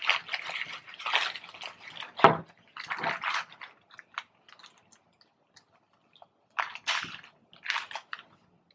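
A chicken sandwich being handled while coated in thick spicy sauce, making wet, sticky sounds in irregular bursts. A sharp knock about two seconds in is the loudest sound, and there is a quiet spell in the middle.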